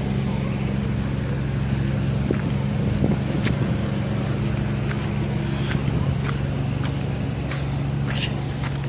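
Diesel engine of a SANY SR280R rotary drilling rig running steadily at a constant speed, with scattered sharp clicks over it.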